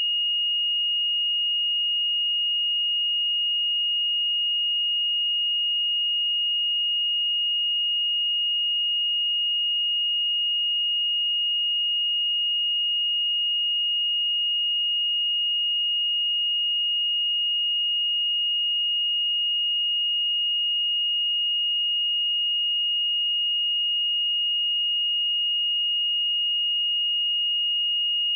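A steady, high-pitched pure sine-wave test tone at 2862 Hz, held at one unchanging pitch and level.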